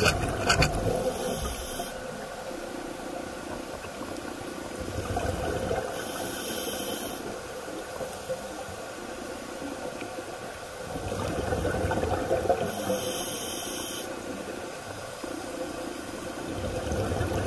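Scuba regulator breathing heard underwater: bubbly rumbles of exhaled air about every five to six seconds, alternating with short hisses of inhalation through the regulator.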